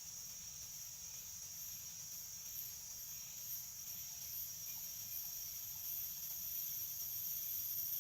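A steady high-pitched chorus of night insects chirring without a break, growing slightly louder toward the end.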